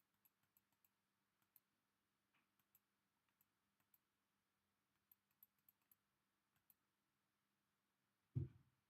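Faint, irregular clicks of a computer mouse, a dozen or more scattered through, over near silence with a faint steady hum. One short, dull low thump near the end is the loudest sound.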